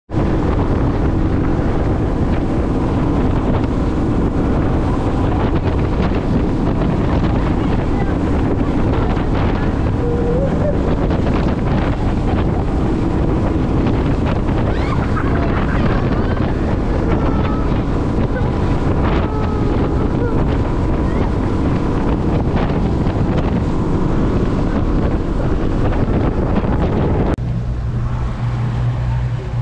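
Motorboat running at speed: wind buffeting the microphone over the drone of the outboard motor and the rush of water along the hull. Near the end the sound changes suddenly to less wind and a steadier low engine hum.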